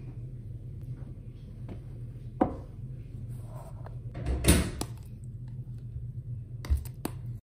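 Kitchen handling noises over a low steady hum: a sharp knock about two and a half seconds in, a louder clatter around four and a half seconds, and a few light clicks near the end, as bowls and a tea towel are handled.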